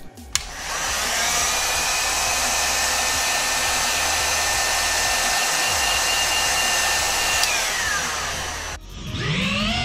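Hot-air heat gun switched on with a click, running with a steady rush of air and a faint motor whine, shrinking heat-shrink tubing over the soldered leads of an XT30 plug. Near the end its whine slides down in pitch and it cuts off. A different sound with a wavering pitch then takes over.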